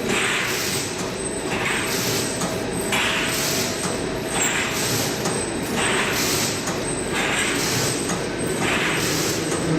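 Hexagonal wire netting machine running, its weaving cycle repeating as a rhythmic hissing swish about every one and a half seconds over steady mechanical noise.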